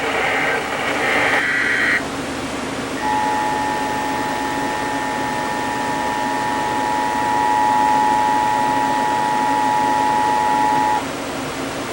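Emergency Alert System broadcast signals over a steady hiss: a digital data burst of raspy warbling tones that cuts off suddenly about a second and a half in, then the EAS attention signal, two steady tones sounding together (853 and 960 Hz), held for about eight seconds before cutting off.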